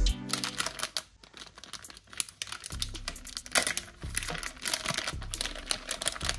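Plastic bag crinkling as it is unfolded and handled: a rapid, irregular run of crackles.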